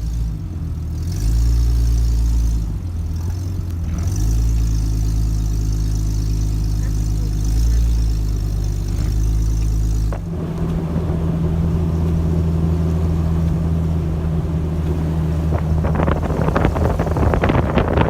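Jeep engine running under load while driving through deep snow, its pitch stepping up and down a few times. Near the end, crackling wind noise on the microphone builds up over it.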